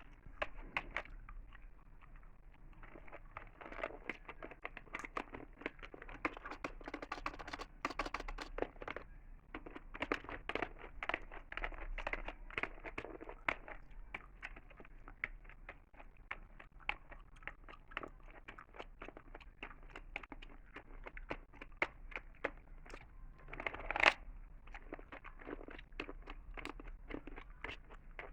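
Close-miked chewing gum: a steady run of quick wet clicks and smacks, with one louder sharp smack about 24 seconds in.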